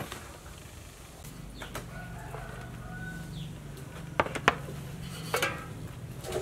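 A rooster crows once in the background about two seconds in, one held call. Near the end, aluminium steamer pot tiers clank sharply a few times as they are handled.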